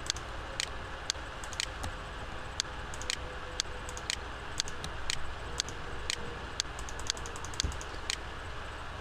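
Computer keys clicking, sharp separate clicks about one to two a second at uneven spacing, over a steady background hiss.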